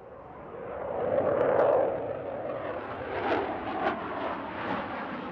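MiG-29 OVT fighter jet flying a display, its twin jet engines making a rushing roar that swells over the first second or two and then carries on rough, with a few short sharp cracks.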